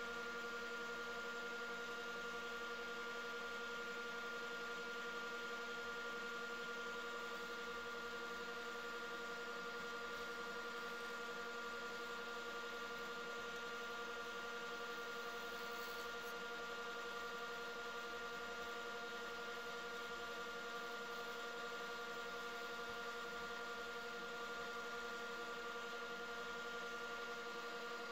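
Wood lathe running at a steady speed: an even motor hum made of several steady tones, with no change in pitch or level.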